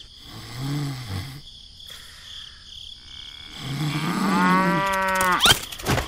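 Cow mooing: a short low moo near the start, then a longer, fuller moo about four seconds in. A brief, fast rising sweep follows near the end.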